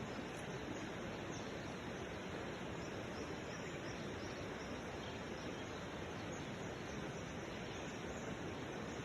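Steady outdoor background noise, an even hiss, with a few faint, short, high chirps scattered through it.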